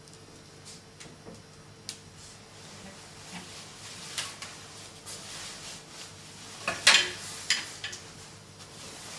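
Clothes hangers clicking and clacking against a metal wardrobe rail while coats rustle as they are pushed along and pulled out, with the loudest clack about seven seconds in.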